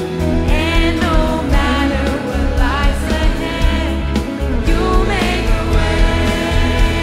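Live contemporary worship song: female lead vocals and a youth choir singing over a band with electric bass, electric guitars and drums.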